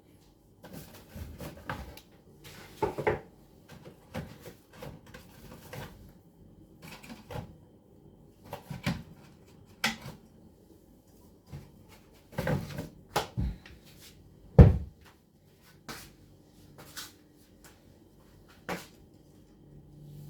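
Irregular knocks and clacks of kitchenware and cupboards being handled while cooking, with a louder thud about two-thirds of the way through.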